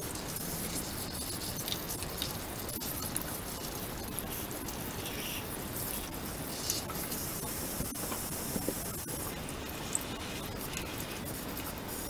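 Soapy water splashing and pattering in a washbasin as plastic vacuum-cleaner dust-case parts and filters are washed by hand, with scattered light clicks of plastic knocking together.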